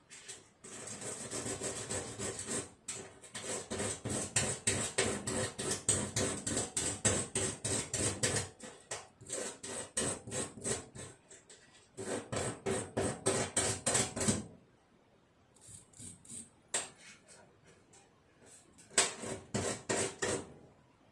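Rapid back-and-forth rubbing or scrubbing strokes, about four a second, in long runs that ease off and pick up again, then a few scattered, louder strokes near the end.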